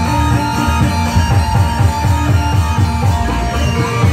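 Loud music from an Indramayu reog troupe: quick, steady drumming under long held melodic notes.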